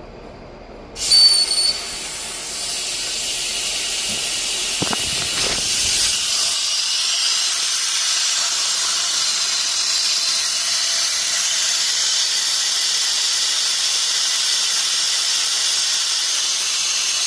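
Compressed air hissing: a loud burst about a second in, then a steady high hiss.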